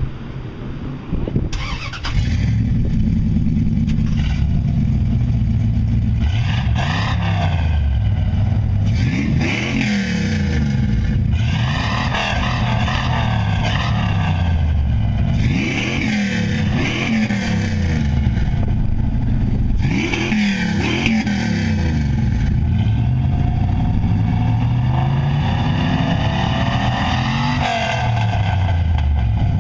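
V8 exhaust through Flowmaster Super 10 mufflers. The engine starts about two seconds in and settles to a loud idle. It is then revved in short blips, each a rising then falling pitch, and near the end in one slower, longer climb before dropping back to idle.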